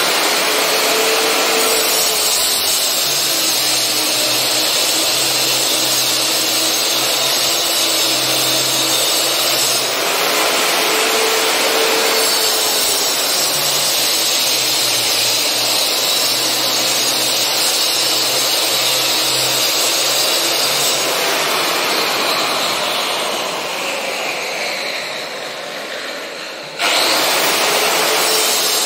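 Handheld power cutter running under load while cutting a wiring groove into a wall, its motor pitch wavering as the disc bites. About three quarters of the way through the motor winds down with a falling whine, then it starts up again sharply near the end.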